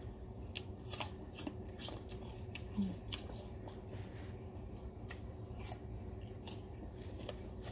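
Crisp apple slices being bitten and chewed, with irregular crunches and clicks, and a short "mm" about three seconds in.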